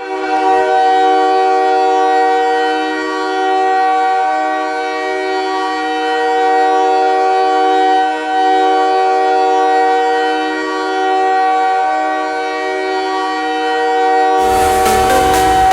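Hockey arena goal horn blowing one long, loud multi-tone chord for about fourteen seconds. Near the end, a pounding electronic goal song cuts in.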